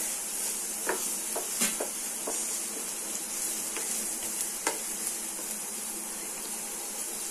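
Chopped vegetables sizzling in oil in a nonstick frying pan while a wooden spatula stirs them, with several scattered taps and scrapes of the spatula against the pan.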